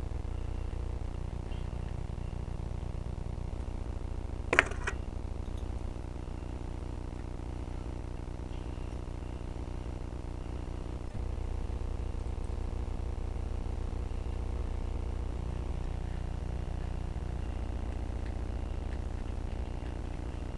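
Steady low hum of room noise. About four and a half seconds in, a single sharp click with a short ring as the 200 mm steel nails knock together while they are wrapped in a rag.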